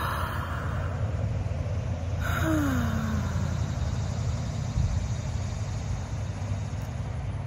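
A woman takes a deep breath in, then lets it out about two seconds later as an audible sigh that falls in pitch, as a calming breathing exercise. A steady low rumble runs underneath.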